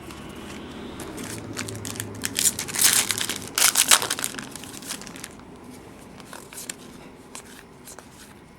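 A foil trading-card pack wrapper from a 2009 Topps UFC box being crinkled and torn open, loudest about two and a half to four seconds in, followed by lighter handling with scattered small clicks.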